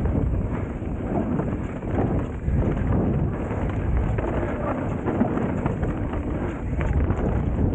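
Mountain bike descending a dirt singletrack: tyre rumble and wind buffeting on the camera microphone, with a constant run of small rattles and knocks from the bike over bumps and roots.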